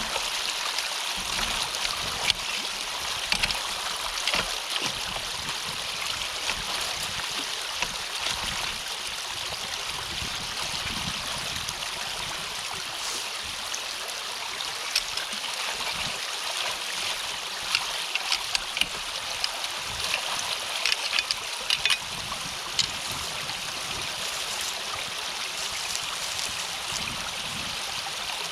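Water streaming and trickling steadily through a drainage ditch culvert blocked by a beaver dam. Brief sharp clicks and splashes come a few times early and in a cluster past the middle.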